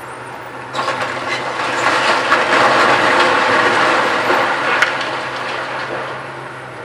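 Concrete and debris crashing and clattering down as a tracked excavator pulls apart a concrete panel apartment block. The fall starts suddenly about a second in, is loudest in the middle and dies away near the end, while the Volvo excavator's diesel engine runs steadily underneath.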